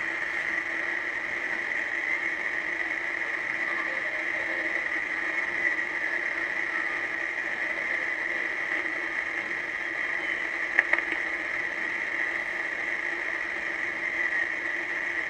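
uBitx v4 HF transceiver's receive audio: a steady hiss of static held in a narrow band of pitch, with a steady low tone beneath it, which the uploader calls bad sound. A couple of faint clicks come about two-thirds of the way through.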